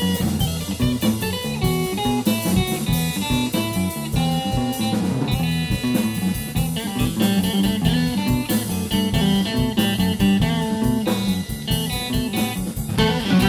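Instrumental jazz: electric guitar playing over bass and drum kit.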